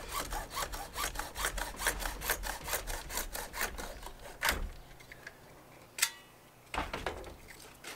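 Hacksaw cutting a slit lengthwise into a short length of pipe, in quick, even back-and-forth strokes that stop about four and a half seconds in. A couple of sharp knocks follow near the end.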